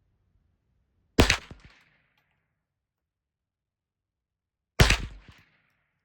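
Two shots from a custom-built Ruger 10/22 .22 LR rifle, about three and a half seconds apart, each a sudden crack with a short ringing tail.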